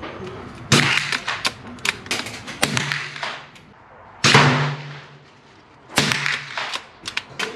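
Shots from a CZ 452 .22 LR bolt-action rifle: three sharp cracks, about a second in, at about four seconds and at about six seconds, each with a short ring, with lighter clicks and knocks between them.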